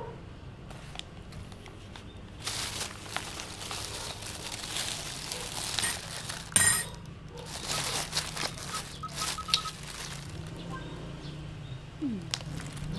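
Paper and plastic bags rustling and crinkling in stretches as food is unwrapped, with one sharp snap about halfway through, over a low steady background hum.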